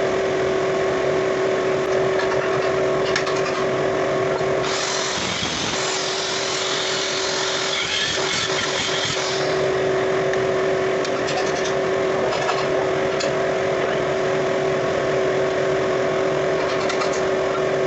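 An electric power tool's motor running steadily at a constant pitch. From about five to nine and a half seconds in, a harsher hiss joins it as the tool grinds into metal.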